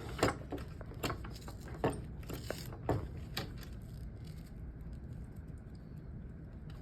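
Sharp clicks and light knocks of a rifle sling and its metal hardware being worked off a 1903 Springfield drill rifle, scattered through the first three and a half seconds, then a low steady background.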